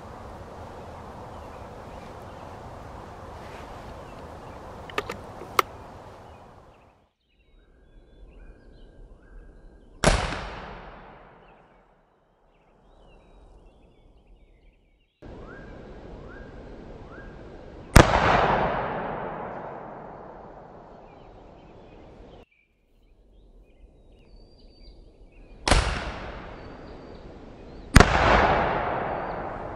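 Four shots from a .54-calibre Greene twist-barrel percussion rifle firing black powder. Each is a sharp crack that dies away over a couple of seconds; the last two come about two seconds apart.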